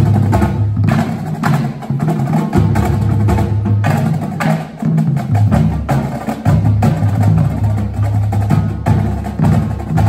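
High school marching band playing: sharp, rapid drumline strokes from snares, tenors and bass drums over sustained low brass notes that change pitch a couple of times.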